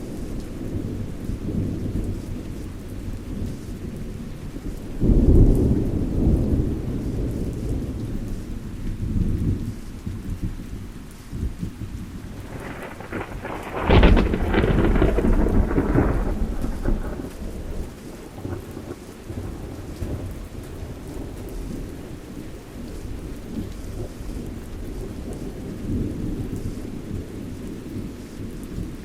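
Thunderstorm: steady rain under continuous low rolling thunder. A loud low boom comes a few seconds in, and about halfway through a sharper, louder thunderclap rumbles on for a few seconds.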